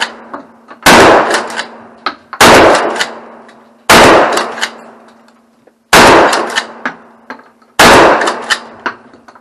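Five loud gunshots fired one after another, about one and a half to two seconds apart, each followed by a short echoing decay.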